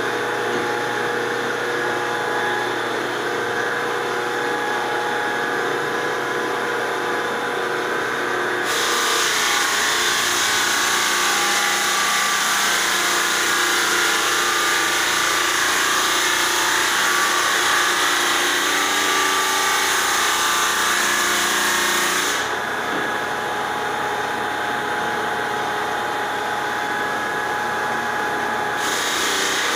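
A machine motor running steadily with a constant hum and whine.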